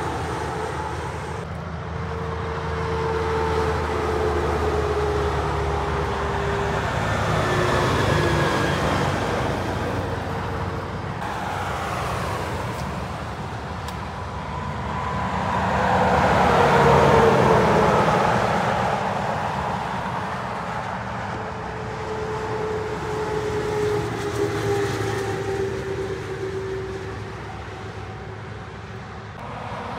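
Heavy semi-trailer trucks and other motorway traffic passing by, tyre and engine noise swelling and fading several times. The loudest pass comes a little past the middle, and a whining tone drops slowly in pitch as vehicles go by.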